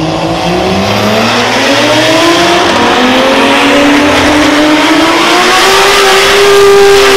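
An R33 Nissan Skyline GT-R's RB straight-six at full throttle, launching off the line. The engine note rises steadily and grows louder, levelling off near the end.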